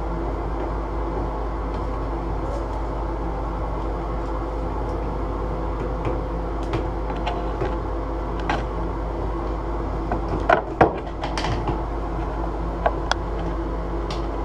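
Light clicks and knocks of a strap wrench and a bathtub spout being handled and turned, with a short cluster of louder knocks about ten to eleven seconds in, over a steady mechanical hum.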